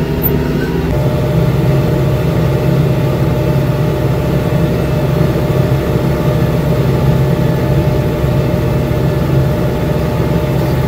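New Holland TS6020 tractor's diesel engine running steadily under load as it pulls a corn planter, heard from inside the cab. It gets a little louder about a second in.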